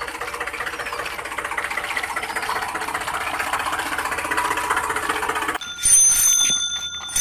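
Plastic toy tractor and trailer rattling steadily as it is pulled over dirt. About five and a half seconds in, a toy auto-rickshaw's bell starts ringing as it rolls, a bright metallic ringing that is the loudest sound.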